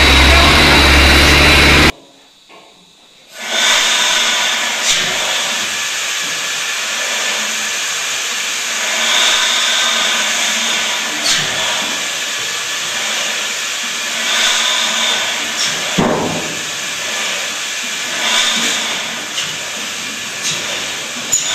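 A turbocharged inline engine running steadily, cut off after about two seconds. After a short lull, a steady hiss comes from around a large vertical stationary engine with a big flywheel, with occasional clicks and a sharper knock about two thirds of the way through.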